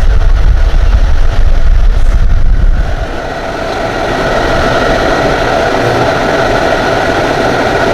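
Portable 3500 W / 12000 BTU air conditioner running on cooling: its cold air blast buffets the microphone with a low rumble for about the first three seconds, then the unit's steady fan hum with a faint whine.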